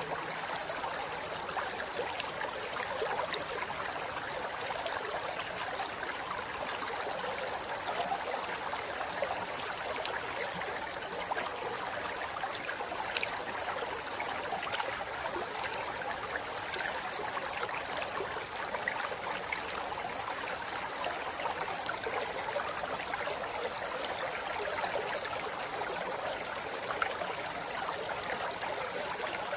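Small forest river flowing over mossy rocks: a steady rush of water with fine splashing and trickling.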